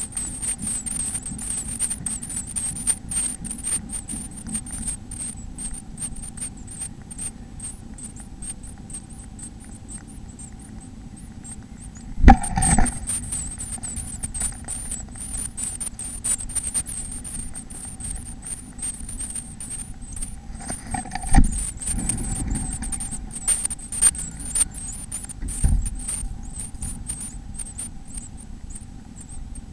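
Scratching and rustling inside a bird nest box, many small clicks, with loud thumps about twelve seconds in and again about twenty-one seconds in. A faint, wavering high-pitched sound with brief gaps and a steady low hum run underneath.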